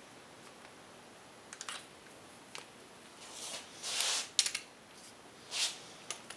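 A torque wrench and socket being handled and fitted onto a connecting rod cap bolt in an MGB engine block: scattered light metal clicks and a few short scraping rustles, the loudest about four seconds in and another near the end.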